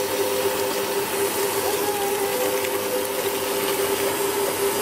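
Electric stand mixer running steadily at speed with an even motor whine, its beater churning a cookie dough of creamed butter, sugar, eggs and vanilla.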